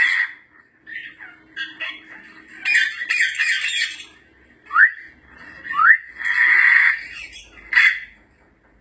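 African grey parrot calling: a series of harsh, grating calls broken by short pauses, with two quick rising whistles about five and six seconds in.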